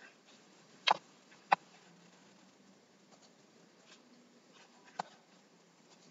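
Three sharp computer mouse clicks: one about a second in, another half a second later, and a softer one about five seconds in, over faint room hiss.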